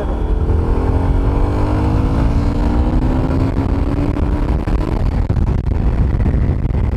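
Yamaha FZ25 motorcycle engine being ridden, its pitch climbing steadily for about five seconds as it pulls through a gear, under a heavy wind rumble on the microphone.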